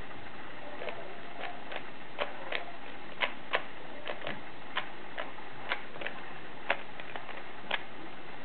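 Plastic Rubik's Cube clicking as its layers are turned rapidly during a speed solve: a string of irregularly spaced sharp clicks.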